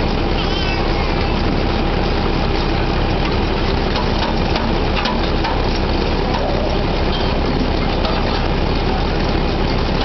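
Drilling rig machinery and its heavy engines running, a loud steady din, while pipe is being tripped.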